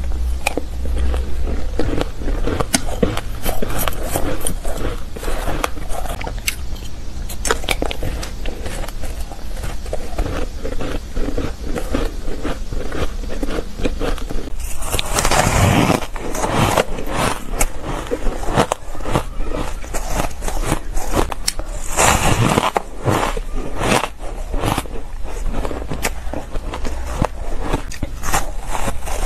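Shaved ice and powdery frozen ice being bitten and chewed: a dense run of crisp, crackling crunches. About halfway through, the crunches turn louder and brighter.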